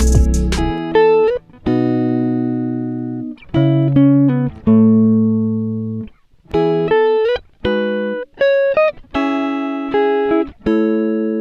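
Background music: a plucked guitar playing single notes and chords that ring and fade one after another.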